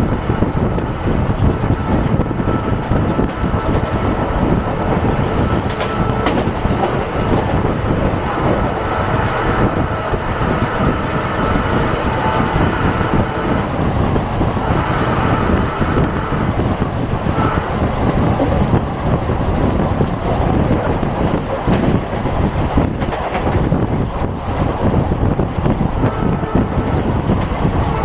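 Diesel-hauled passenger train running at speed, heard from an open coach door: steady loud rumble of wheels on the rails with clickety-clack over the joints.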